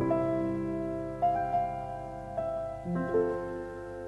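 Background music: slow piano, single notes struck about once a second and left to ring over sustained chords.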